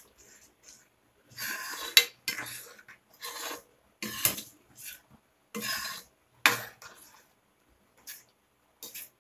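A spoon stirring and scraping around a pan of dal, in about five rough strokes of half a second or so. Three sharp clacks of the spoon against the pan fall about two, four and six and a half seconds in, the first the loudest, with a couple of lighter taps near the end.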